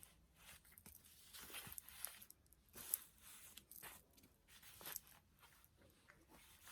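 Faint rustling and small clicks of a doll's fabric dress being handled.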